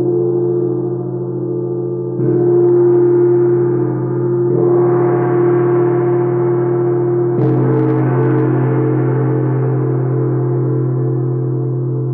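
A deep-toned struck metal instrument, like a gong, played for sound healing: four strokes two to three seconds apart, each ringing on and overlapping the last into a steady drone.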